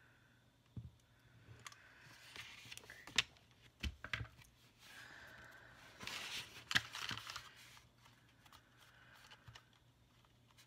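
Cardstock paper rustling and rubbing as hands press a glued paper cutout flat, in two stretches, with a few sharp clicks and taps between.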